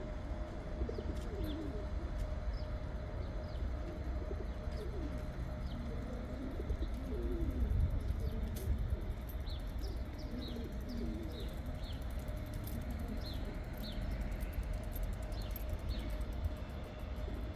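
Pigeons cooing over and over, with short high chirps from small birds, over a steady low rumble and a constant hum.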